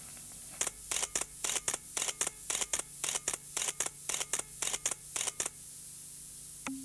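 A rapid, uneven run of sharp clicks, about six a second, that starts just after the beginning and stops about a second before the end, over a faint steady low hum.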